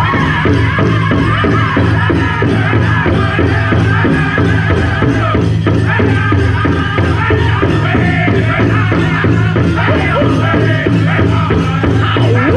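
Powwow drum group singing a fast song in high voices over a steady unison drumbeat of about three beats a second on a big powwow drum, for a chicken dance. The jingle of the dancers' leg bells is mixed in.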